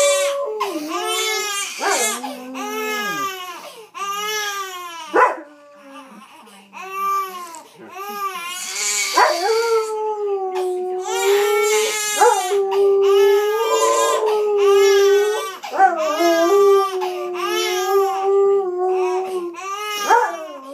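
Old English Sheepdog howling along with a crying baby: a run of short rising-and-falling wails, then, from about nine seconds in, long held howls lasting several seconds each.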